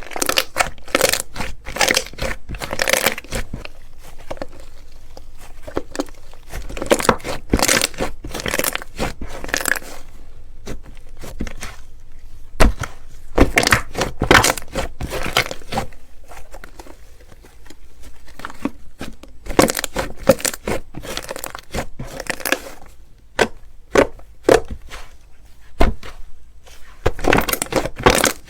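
Slime being crushed and squeezed by hand, crackling and popping in dense bursts of a few seconds each, with a few single sharp pops between them.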